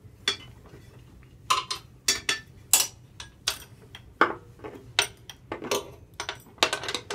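Two 9/16-inch wrenches clinking and knocking against metal as they are fitted on either side of an aerator's tensioner sprocket bolt: about ten irregular sharp clinks, a few ringing briefly.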